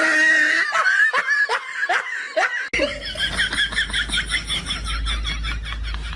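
Laughter in quick repeated bursts, with a cut about three seconds in to a second stretch of rapid laughter over a low hum.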